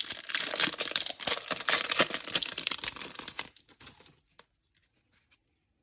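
A 2022 Topps Chrome trading-card pack's foil wrapper being torn open and crinkled, with many quick rips and crackles. It tapers off after about three and a half seconds.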